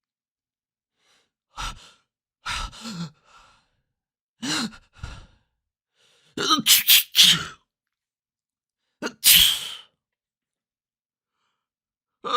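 A run of human sneezes, about five separate ones in different styles, each a short burst with silence between, coming every second or two.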